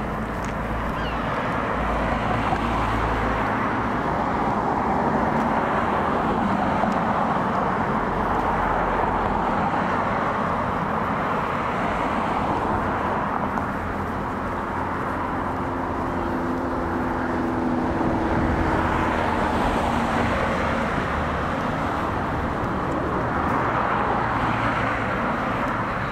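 Road traffic: cars passing on a town road, tyre and engine noise swelling and fading as each goes by, with a vehicle's engine hum held for a few seconds around the middle.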